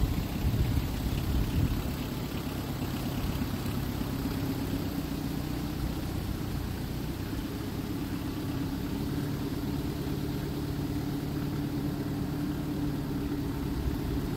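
Kioti compact tractor's diesel engine running steadily while it powers a backhoe attachment, a little louder and more uneven for the first couple of seconds, then even.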